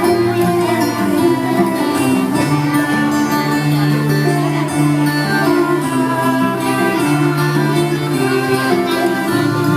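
Recorded music with violin and guitar, a steady melodic piece with notes held and changing about once a second.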